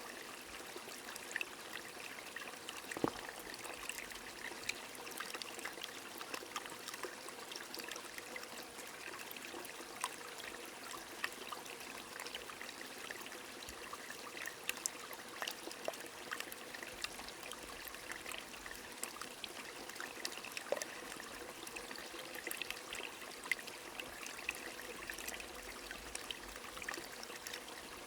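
Rain over a small stream: a steady rush of trickling water, with scattered sharp ticks throughout.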